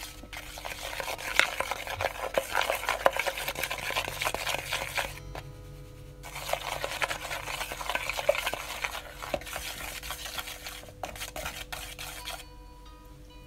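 Chopsticks stirring dry seasoned flour in a bowl: quick scratchy strokes with light clicks against the bowl's sides, in two spells with a short pause about five seconds in. The stirring stops about a second before the end.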